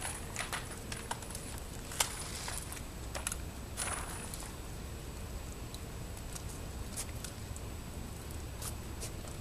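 Scattered small metallic clicks and rattles as several people load cartridges into their handguns. The sharpest click comes about two seconds in.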